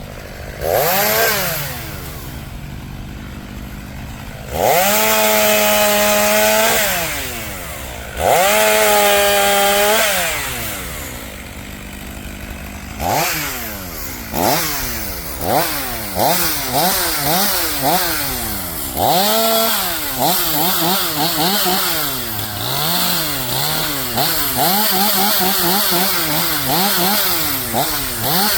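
Two-stroke chainsaw cutting a fallen bur oak. It idles, revs briefly, then runs two sustained full-throttle cuts of about two seconds each. From about halfway through, the revs rise and fall rapidly over and over.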